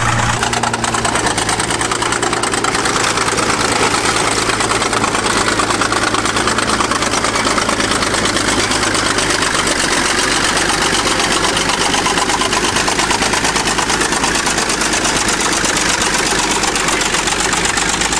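1953 International TD-20 crawler bulldozer's diesel engine running steadily and loudly as it works over a car.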